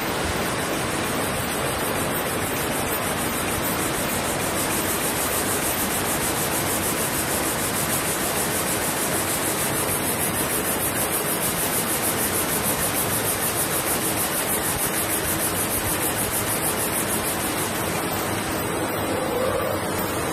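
Rhinestone shaking machine running: its vibrating tray rattles a mass of tiny point-tip and round nail rhinestones, making a steady, dense hiss-like rattle.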